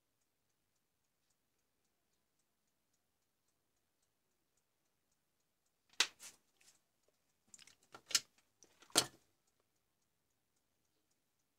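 Handling noise: a few sharp clicks and knocks, six to nine seconds in, as the charger cable and its connector are handled. Under them runs a faint, steady ticking about three times a second.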